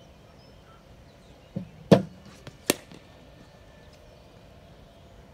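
A cricket ball delivered by a bowling machine and struck by the bat: a dull thump, then a loud sharp crack about two seconds in and a second sharp crack under a second later.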